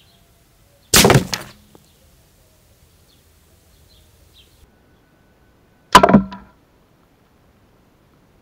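Two sharp air-gun shots about five seconds apart, each with the pellet smacking into a full aluminium beer can, dying away within about half a second.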